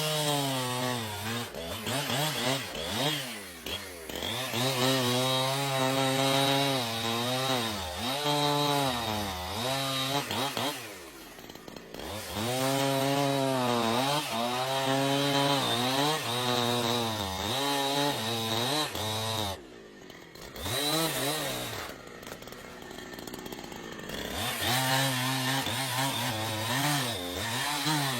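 Chainsaw engine running under load as it cuts into wood, its pitch rising and falling again and again as it revs and bogs in the cut. Twice it drops back quieter for a second or two, about eleven and twenty seconds in.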